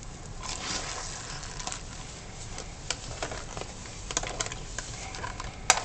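Spatula stirring and scraping crab pieces in thick chilli sauce in a non-stick pan: irregular clicks and scrapes, with a sharper knock near the end.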